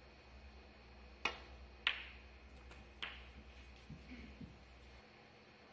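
Snooker balls clicking: three sharp clicks about a second apart as the cue strikes the cue ball and the balls hit each other, with a couple of fainter ticks between them.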